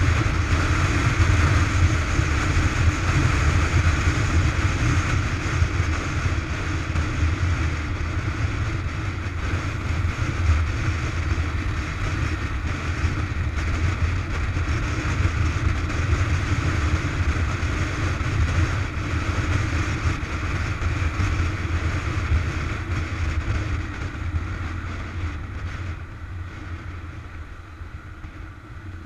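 Onboard sound of a motorcycle being ridden: the engine's steady low drone under wind rushing over the camera's microphone. The sound gets quieter over the last few seconds.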